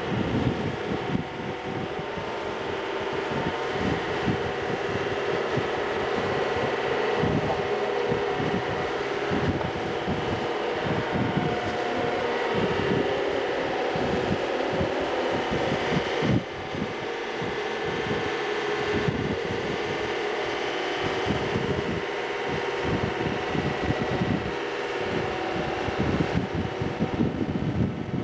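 Wind buffeting the camcorder microphone in irregular rumbles over the steady drone of the parasail tow boat's engine.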